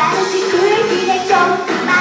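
Live J-pop performance: young female voices singing a melody over an upbeat pop backing track.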